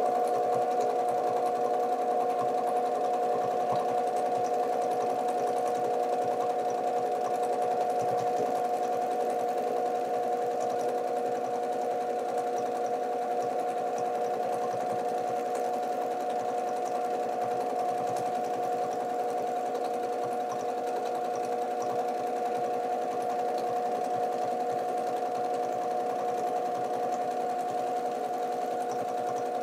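Domestic sewing machine running at a steady speed and stitching without pause, with a steady whine. The quilt is guided by hand under the free-motion quilting foot.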